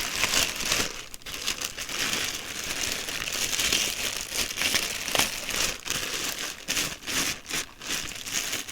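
Plastic packaging crinkling and rustling in the hands as items are handled and unwrapped, in irregular bursts of rustle.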